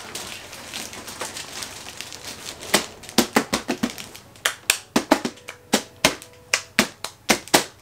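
Plastic wrapping rustling as a new inkjet printer still in its bag is handled, followed by a run of sharp, irregular clicks and taps about two a second.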